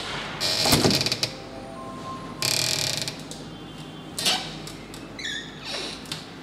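A built-in kitchen fridge and its cabinet fittings being handled: two sliding rattles, a few clicks, and a short falling squeak about five seconds in.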